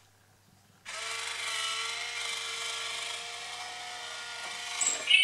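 Small electric motor and gears of an Itazura cat coin bank whirring steadily for about four seconds, starting about a second in. A short, louder high-pitched sound comes just before the end.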